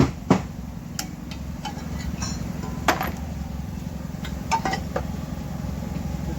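Hammer blows on metal: the last two of a quick, even series come in the first half second. After that come scattered clinks of hand tools and metal parts, over a steady low hum.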